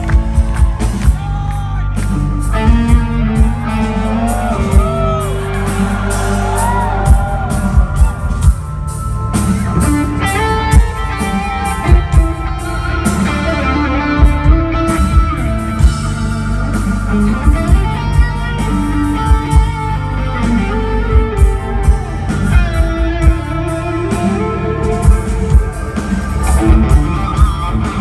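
Live progressive metal band playing loud on a concert stage, recorded on a phone's microphone from the crowd. An electric guitar plays a lead line with notes that bend up and down over heavy drums and bass.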